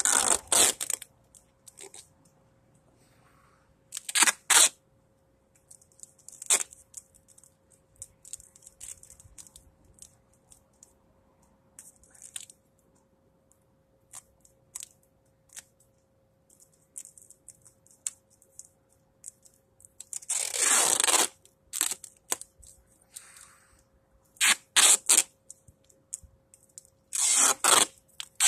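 Duct tape being ripped off the roll in a series of short pulls, one longer pull about two-thirds of the way in, with quieter rustling and crinkling of the tape being wrapped between them.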